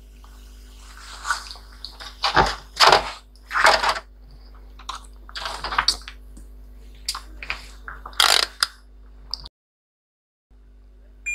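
Handling noises as a laptop motherboard and a digital multimeter are set down on a foam mat and the test probes picked up: several short scattered rustles and knocks over a steady low hum. Right at the end a multimeter's continuity beeper starts a steady high beep.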